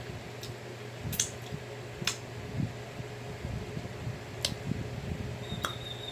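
A few sharp clicks and cracks of crab shell being picked apart and eaten, with small knocks in between, over a steady low hum.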